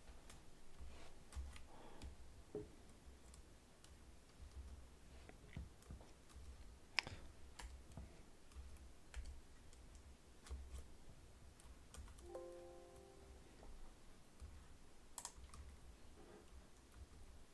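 Faint, scattered clicks of a computer mouse and keyboard, the sharpest about seven seconds in, with a brief humming tone a little after twelve seconds.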